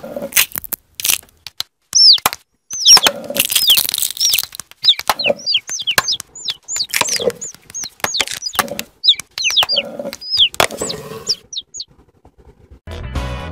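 Quick, high, falling chick peeps, many in a row, mixed with sharp cracks and clicks like eggshells breaking. Music starts near the end.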